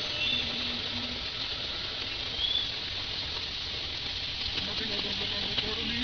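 Heavy monsoon rain pouring onto a flooded street: a steady, even hiss of rain.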